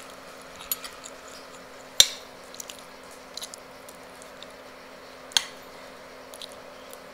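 Close-miked eating by hand: wet mouth noises, chewing, lip smacks and finger licking, scattered with small clicks. Two sharp clicks stand out, the loudest about two seconds in and another about five seconds in. A faint steady hum runs underneath.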